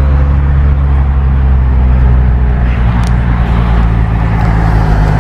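Steady car cabin noise while driving: a constant low engine drone under road and tyre noise.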